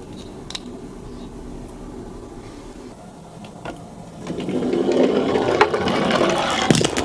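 Toy minicars clattering along a slope: a low steady hum, then from about four seconds in a louder rattling whir full of small clicks.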